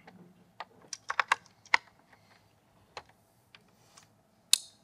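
Scattered light clicks and knocks of computer hardware and a cable being handled and plugged in, with a short scraping hiss near the end.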